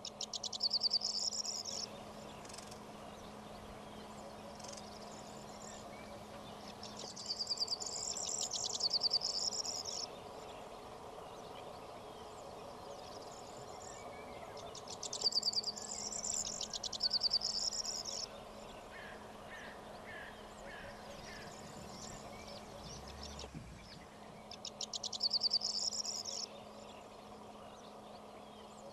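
A small songbird singing a high, fast trilling phrase about two seconds long, four times, some seven seconds apart, over a steady low hum.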